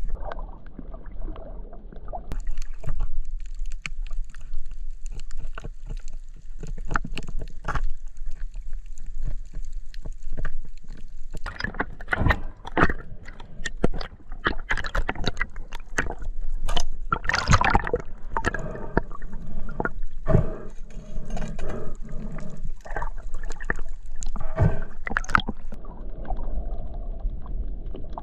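Water heard from underwater, sloshing and gurgling, with a dense run of sharp clicks and knocks through the second half.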